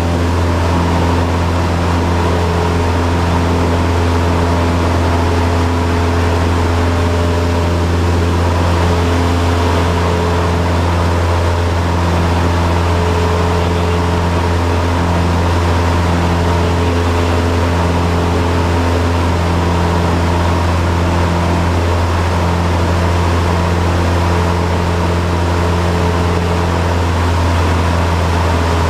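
Cessna 172's piston engine and propeller droning steadily, heard inside the cockpit, at an even power setting without change.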